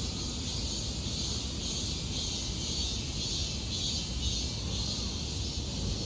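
Summer cicadas droning in a steady chorus, a high shrill hum that swells and eases, over a low steady rumble.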